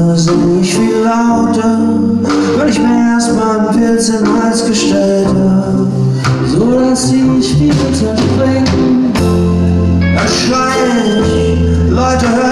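A rock band playing a song: male singing over electric guitars, keyboard, bass and drums.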